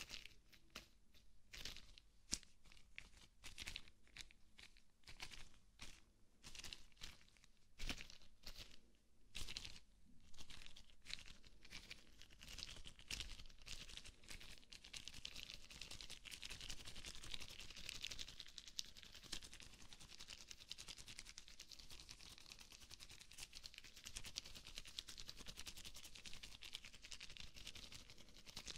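Rubber gloves rubbed and crinkled close to a binaural microphone: separate sharp crinkling strokes for about the first ten seconds, then a steady, fast rubbing.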